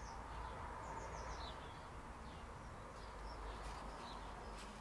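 Birds chirping faintly in the background: short, high, falling chirps every second or so over a steady low room noise. A couple of faint clicks near the end.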